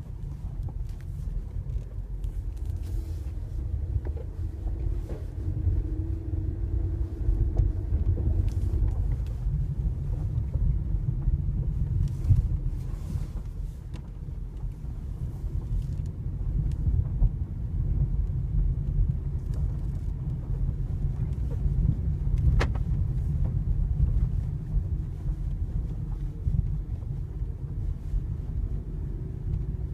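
Volkswagen Golf 7 driving over bumps: a steady low road rumble with occasional short creaks and clicks from the front suspension, one sharper click a little past two-thirds of the way through. The owner traces the creak to worn rear bushings of the front control arms.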